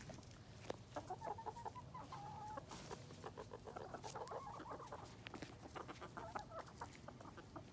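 Chickens clucking quietly as they feed, a run of short calls from a flock of hens and a rooster.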